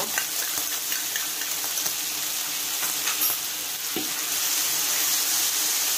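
Minced pork and seasoning sauce sizzling in a hot wok as they are stirred and pressed with a metal spoon. The spoon scrapes and clicks against the pan, with one sharper knock about four seconds in.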